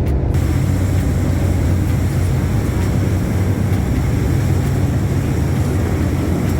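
A loud, steady engine drone, deep and even, with a rushing noise on top.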